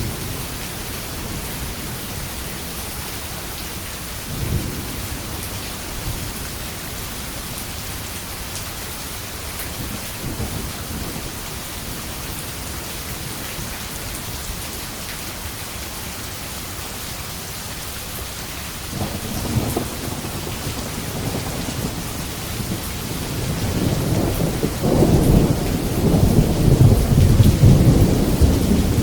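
Steady rain falling with thunder: a short low rumble about four seconds in, another near the middle, and a long, loud rolling peal building over the last few seconds.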